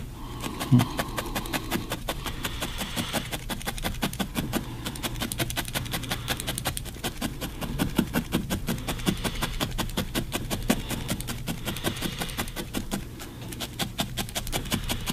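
A barbed felting needle jabbed rapidly and repeatedly into wool, a steady run of short pokes about six a second, fixing a small piece of wool for the nose onto a felted figure. The pokes ease off briefly about thirteen seconds in, then carry on.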